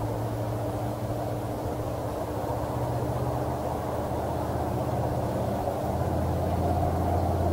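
Steady low engine-like hum with a constant background rush, its low tones shifting a little about six seconds in.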